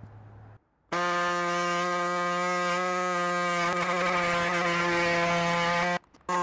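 Pneumatic air hacksaw running as it cuts through the sheet-metal front guard along a marked line: a steady, even-pitched machine sound that starts about a second in, stops briefly near the end and starts again.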